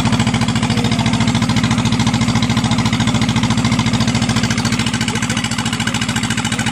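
Engine running steadily close by with an even, rapid firing beat, easing off slightly towards the end.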